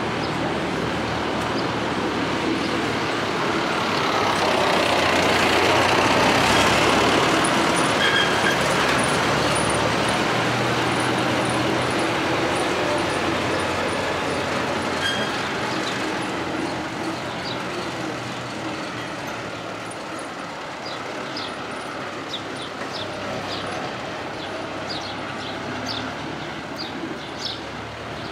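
A farm vehicle towing a hay-loader wagon drives past, its engine and rolling wagon loudest about six seconds in, then slowly fading as it moves away.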